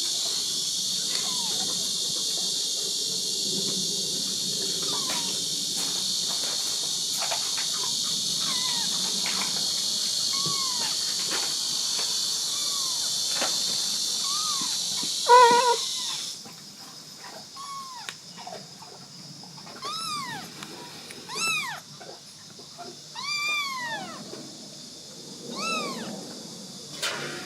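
Kitten meowing over and over, each meow rising and falling in pitch, with one short, loud, stuttering call about fifteen seconds in. A steady high insect chorus runs underneath and cuts off suddenly just after that loud call. From then on the meows come every second or two.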